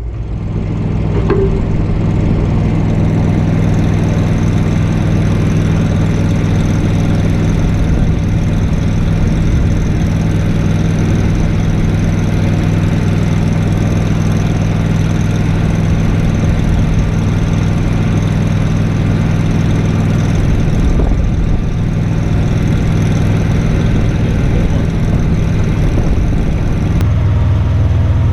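Engine-driven welding machine running steadily, with the hiss of a welding arc laid over it from about a second in until near the end.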